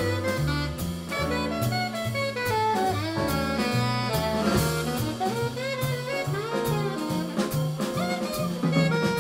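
Live jazz quartet playing: a saxophone carries the melody over a Nord electric piano, upright double bass and drum kit with cymbals.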